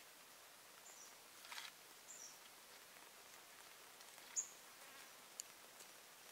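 Quiet outdoor ambience: a faint steady hiss with a few short, high chirps, the loudest about four and a half seconds in, a brief rustle near the start and a single sharp click near the end.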